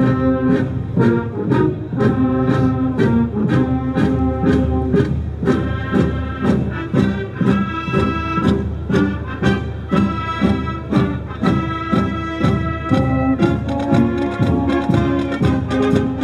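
Brass-led music with a steady beat.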